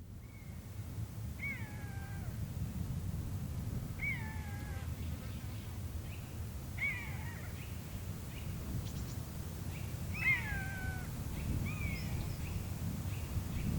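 A bird calling with about five drawn-out, downward-sliding mewing calls a few seconds apart, over a steady low rumble.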